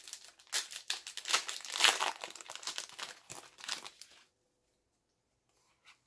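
A Final Fantasy TCG booster pack's wrapper being torn open and crinkled by hand: a run of crinkling rustles, loudest about two seconds in, that stops about four seconds in.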